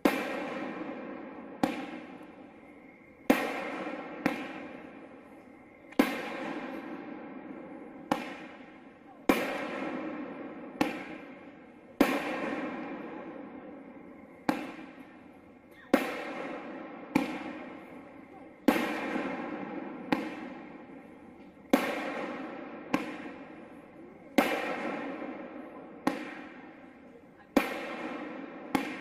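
Black Cat 'Wide Load' 16-shot consumer firework cake firing shot after shot, a sharp bang every second or two, each fading away over about a second before the next.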